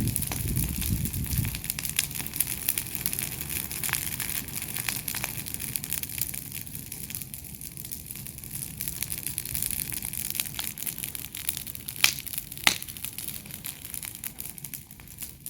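Continuous dry crackling and crunching, full of small clicks, with two sharp snaps about three-quarters of the way through.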